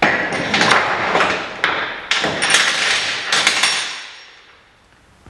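Engine parts knocking and clattering against a metal workbench as they are handled: a few sharp knocks, each followed by rattling, fading out about four seconds in.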